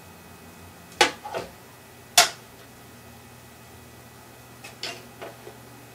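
Sharp knocks and clicks of hard parts being handled: two in the first second and a half, the loudest a little after two seconds in, then a quieter cluster of clicks about five seconds in, over a faint steady hum.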